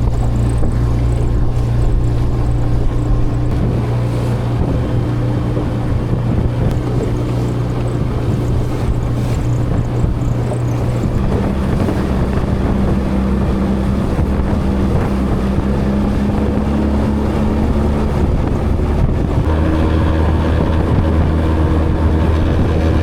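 Motorboat engine running under way, with wind on the microphone; the engine note rises about eleven seconds in and drops again near the end.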